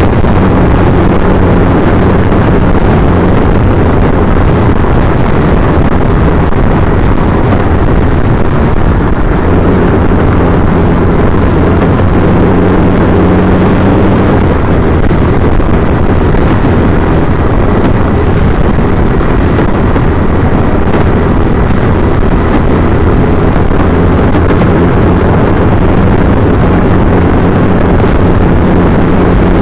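Loud wind noise on the microphone over the 2010 Triumph Bonneville T100's 865 cc parallel-twin engine running steadily while riding in traffic.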